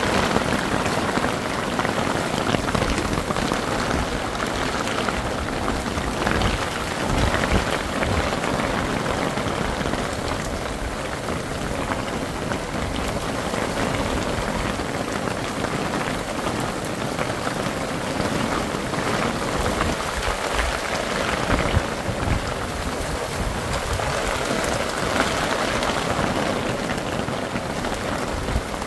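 Heavy rain falling steadily, loud on the tarp canopy overhead and on the ground around it.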